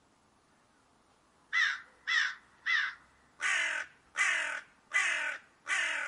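A crow cawing seven times in quick succession, starting about a second and a half in: three short caws, then four longer caws.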